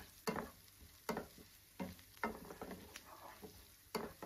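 Wooden spatula stirring onion, curry leaves and seeds in oil in a nonstick pan: several irregular scraping strokes, one or two a second, over a faint sizzle of frying oil.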